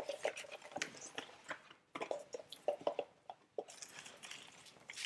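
Faint, irregular rustling and light clicks of a gift box being handled.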